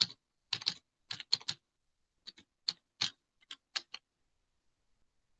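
Typing on a computer keyboard: an irregular run of quick key clicks that stops about four seconds in.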